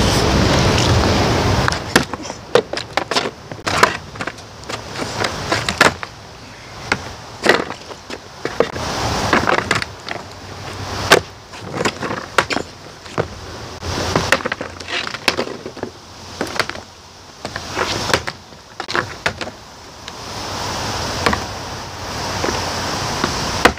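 Skateboard on asphalt: a run of sharp, irregular clacks and knocks as the board's tail pops and its deck slaps down. Wind buffets the microphone in the first couple of seconds and again near the end.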